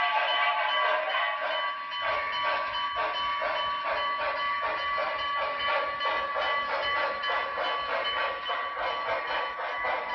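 HO-scale Broadway Limited Reading T1 4-8-4 running under DCC with its Paragon3 sound decoder playing steam-locomotive chuffing in a steady rhythm through its small onboard speaker. A steady high tone sits underneath.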